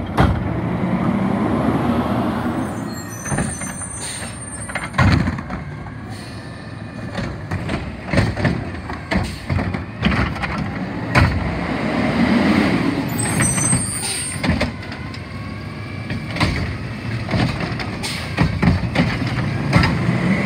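Curotto-Can garbage truck at work: the diesel engine runs under load with a hydraulic whine while the arm and plastic cart knock and bang. Two short air-brake hisses come about a third of the way in and again past the middle.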